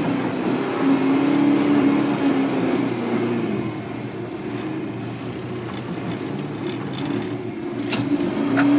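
Diesel engine of a backhoe loader running under throttle as the machine moves over loose dirt, heard from inside the cab. The engine note rises about a second in, eases off through the middle and picks up again near the end.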